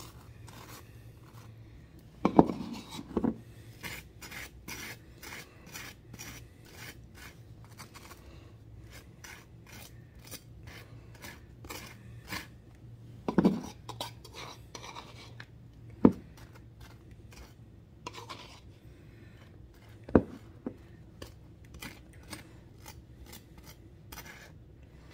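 Table knife scraping butter across crisp toast: a long run of short rasping strokes. A few louder knocks come in between, twice close together a couple of seconds in, then singly later.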